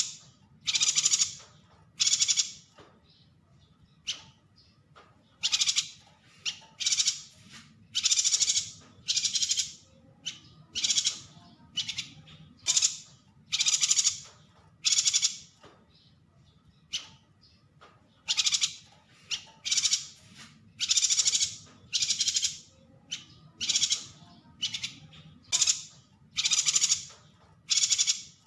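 Yuhina calling: a long series of short, high-pitched phrases repeated about once a second, with brief pauses between runs.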